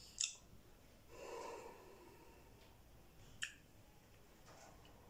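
A person tasting whisky, quiet mouth sounds: a sharp lip-smack click just after the start, a soft breath out through the nose about a second in, and another mouth click about three and a half seconds in.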